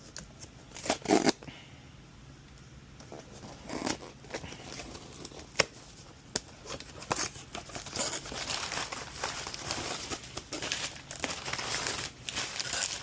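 Packaging crinkling and tearing as a small circuit board is unwrapped, with scattered clicks and knocks from handling. The crinkling gets denser and steadier in the second half.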